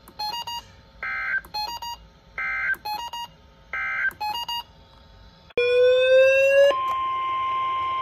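NOAA Weather Radio alert arriving on several weather alert radios at once: three short bursts of SAME header data tones, mixed with the radios' electronic beeps, then a loud alarm tone rising slightly in pitch for about a second, then the steady weather radio warning alarm tone.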